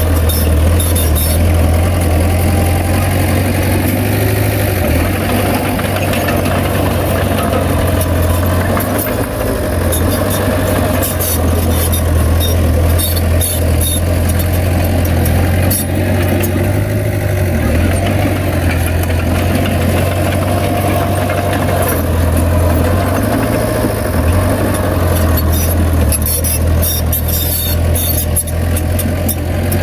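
Heavy diesel engine of a Komatsu bulldozer running steadily, with scattered sharp metallic clicks and clanks, thickest about a third of the way in and again near the end.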